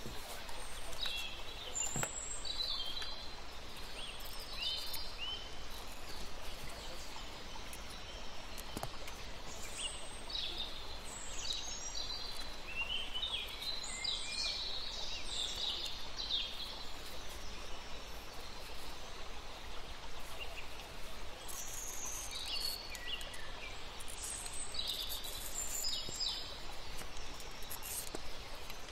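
Birds chirping in short, repeated calls over a steady background hiss.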